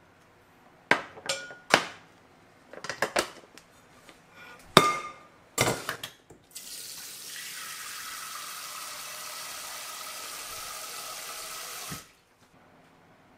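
A few sharp knocks and clinks of kitchenware, then a kitchen tap runs for about five seconds, filling a container, and is shut off abruptly.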